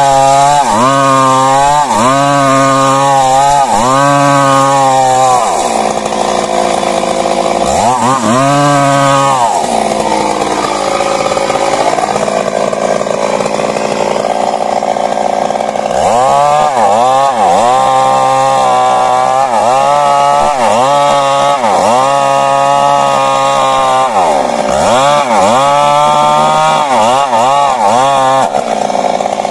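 Stihl MS 382 two-stroke chainsaw cutting into a large tree. Its engine pitch dips and recovers about once a second as the chain bites, with a stretch of steadier cutting in the middle.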